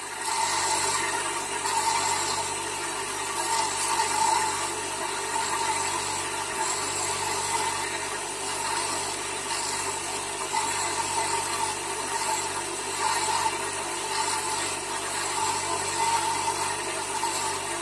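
Motor-driven grinding wheel running steadily, with a rough agate stone held against it and being wet-ground: a continuous grinding rasp over the motor's hum.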